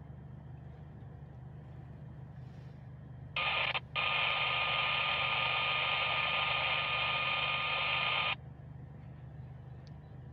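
A burst of two-way radio sound: a short blip, then about four seconds of loud hissing static with steady tones, which starts and stops abruptly. A steady low hum runs underneath.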